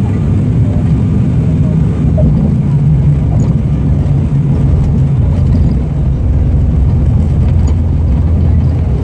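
Cabin noise of an ATR 72-500 during its landing roll: the twin turboprop engines and propellers make a loud, low drone, with the runway rumble beneath it. The drone's pitch drops about halfway through as the aircraft slows.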